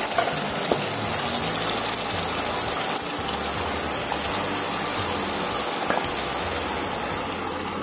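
Yogurt-marinated chicken pieces sizzling in hot oil in a non-stick kadai, a steady frying hiss as they go in and are pushed about with a wooden spatula, with a few light clicks.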